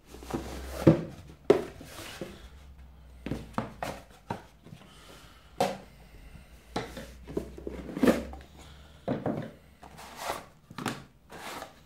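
Cardboard fat pack box being handled and opened: irregular scrapes, taps and rustles of cardboard and paper as the player's guide is pulled out and the lid lifted off.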